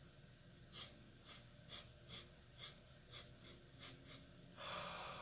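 A man sniffing nasal snuff off the back of his fist: about eight short, sharp sniffs, roughly two a second, then one longer, stronger sniff near the end.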